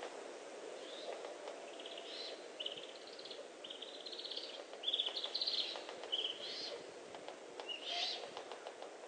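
Barn owls at the nest giving a series of raspy, rapidly pulsed chittering calls during a prey delivery. The calls come in quick succession, loudest around the middle, and a last one comes near the end, over a steady background hiss.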